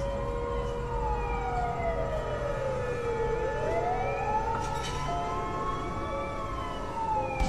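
A siren wailing in slow rises and falls, about six seconds per cycle, over a low rumble.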